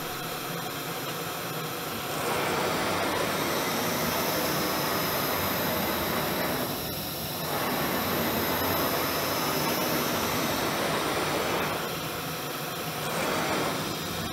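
ShopSabre IS 510 CNC router's gantry traversing on its servo-driven ball screw: a steady mechanical whir with a faint high whine. It gets louder about two seconds in, eases briefly midway, and drops back for a while near the end.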